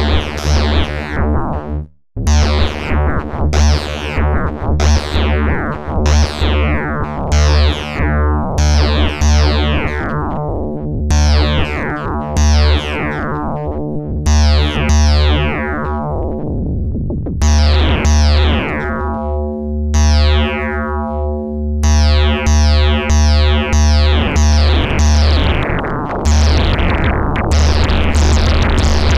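Eurorack modular synthesizer patched through the Sinulator, a SineCore-based modulator module, playing a repeating sequence of notes with crunchy, bright attacks that dull quickly, over a pulsing low bass, about one to two notes a second. Partway through, the notes give way to a few longer, darker held tones and the bass drops out, then they return faster and denser near the end.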